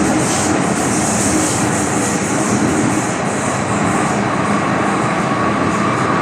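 MTR M-train metro train running between stations, heard on board: a steady rush of wheels on rail with a hiss, and a steady high tone that comes in about four seconds in.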